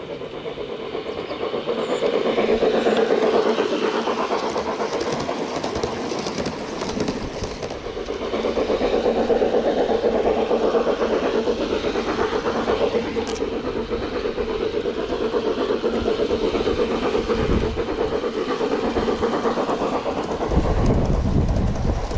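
Gauge 1 model train running on garden railway track, a steady dense rush of running noise that grows louder about two seconds in and again about eight seconds in.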